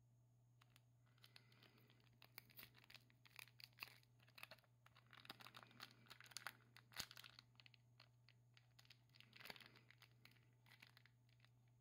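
Faint crinkling and crackling of a trading-card pack wrapper being picked at and pulled by fingers, a stubborn pack that won't tear open, in scattered small crackles and clicks. A low steady hum runs underneath.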